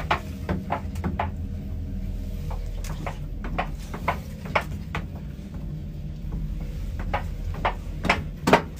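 Lift car with a steady low hum, with irregular sharp clicks and knocks over it, the loudest near the end.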